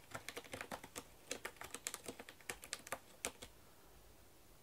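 Cat's claws clicking and crackling on a corrugated-cardboard scratcher, a quick irregular run of light clicks that stops about three and a half seconds in.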